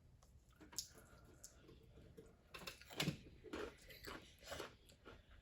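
A person chewing a pepper-flavoured bread snack close to the mouth, faint, with a run of short crunches in the second half, the loudest about three seconds in.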